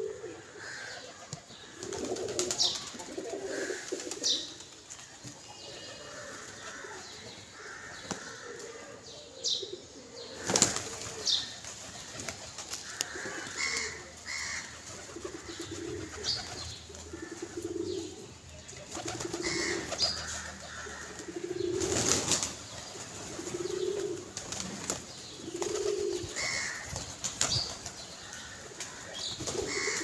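A flock of domestic pigeons cooing again and again, with sudden loud wing flaps as birds take off and land, the loudest about a third of the way in and again past the middle. Short high chirps come through now and then.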